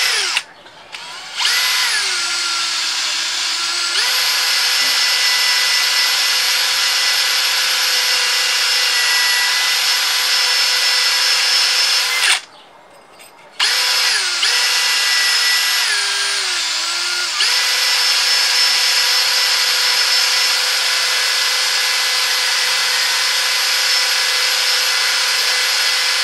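Cordless drill running at speed, its motor whining steadily as it spins against the variator fan of a Yamaha Axis 90 scooter to sand it smooth. Twice the pitch drops lower for a few seconds before rising back to full speed, and the drill stops for about a second near the middle before starting again.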